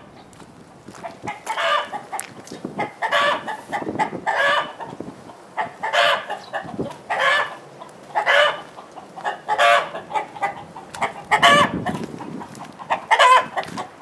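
Nagoya Cochin chickens giving loud, repeated panic calls, about one a second, starting about a second in. They are alarm calls set off by large wild birds flying overhead.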